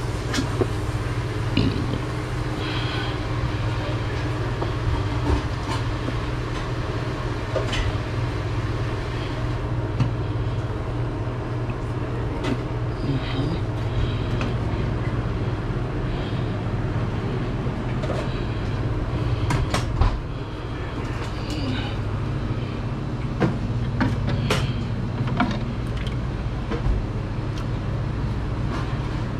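A steady low machine drone runs throughout, with scattered knocks and clatters of food-prep work in a kitchen.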